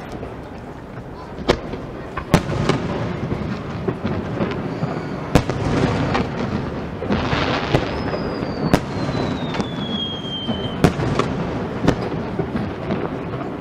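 Aerial firework shells bursting over a bay: about eight sharp bangs over a continuous crackling rumble of the display. About eight seconds in, a thin whistle falls steadily in pitch for some three seconds.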